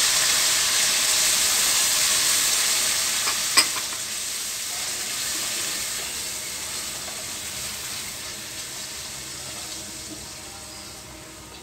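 Chopped tomatoes sizzling in hot oil in a kadhai as they are stirred, the sizzle fading steadily. One sharp tap about three and a half seconds in.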